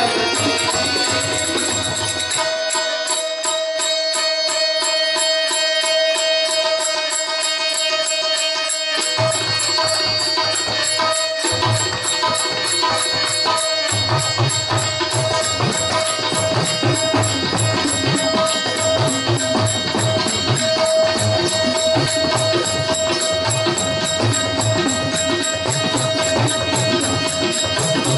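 Marathi bhajan ensemble playing: a harmonium holds a steady note over fast, even jingling hand percussion. Tabla strokes come in about nine seconds in, drop out for a couple of seconds, then play on steadily.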